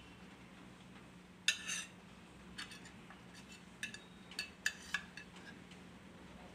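Steel spoon clinking against stainless-steel plates and bowls: a ringing clink about a second and a half in, then several shorter clinks over the next few seconds.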